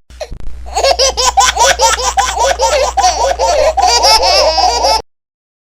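Baby laughing sound effect: a loud, rapid string of high laughs, about four or five a second, that cuts off suddenly about five seconds in.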